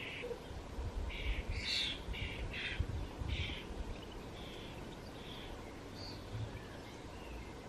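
Bird calls: short harsh calls, about two a second for the first three seconds or so, then a few fainter, thinner calls.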